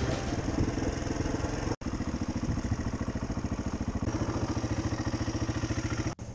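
Hyosung RX125 trail bike's single-cylinder engine running at low, steady revs while being ridden, its exhaust pulses coming fast and even. The sound breaks off for an instant about two seconds in.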